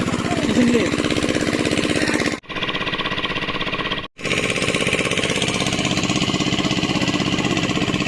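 Engine of a pump machine draining water from a fish enclosure, running steadily with a fast, even beat. It breaks off for an instant twice, about two and a half and four seconds in.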